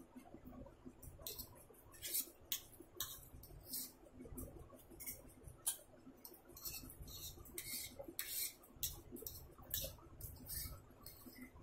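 A metal fork clicking and scraping against a ceramic plate as noodles are picked up and eaten, in irregular sharp ticks.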